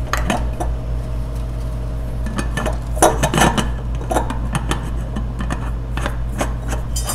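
Glassware and metal bar utensils clinking and clattering as they are handled on a bar counter, in scattered short knocks that are busiest about three seconds in, over a steady low hum.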